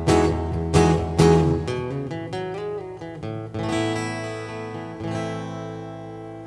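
Acoustic guitar intro: strummed chords for the first couple of seconds, then a few chords struck and left ringing, fading out toward the end.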